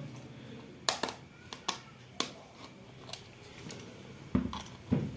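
Box-cutter blade slitting the seal on a cardboard phone box: scattered short scratches and clicks as the blade catches and drags, with two duller knocks near the end.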